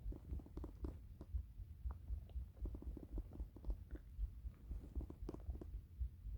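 Hungry, empty stomach rumbling and gurgling: a low rumble with many short, irregular gurgles.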